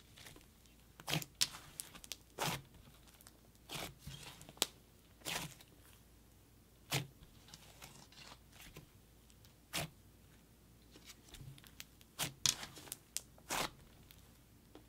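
Thick, clay-heavy butter cloud cream slime being stretched and pressed by hand, giving short crackles and pops at irregular intervals, a dozen or so in all.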